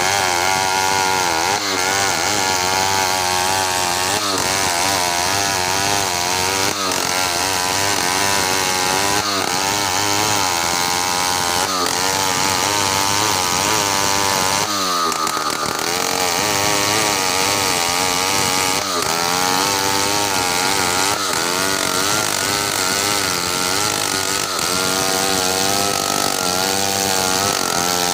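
Large two-stroke chainsaw ripping lengthwise through a meranti log at full throttle. The engine pitch wavers and dips under load every two to three seconds, then recovers, with the deepest dip about halfway through.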